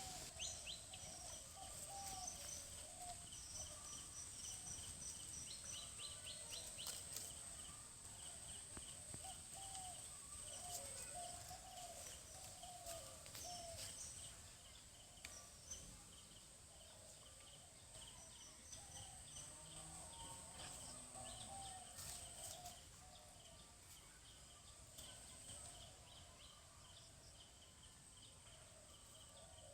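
Birds calling, with repeated warbling chirps and strings of short high notes, over a steady high insect whine that fades out about halfway through, all faint against a low background hiss.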